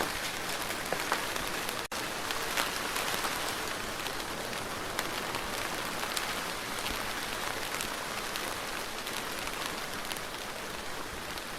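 Steady rain falling, a dense even patter with individual drops ticking through it, broken by a split-second dropout about two seconds in.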